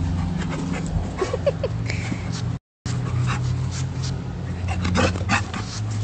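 Chow chow panting and whimpering, with a few short, high, rising whimpers about a second in, over a steady low hum.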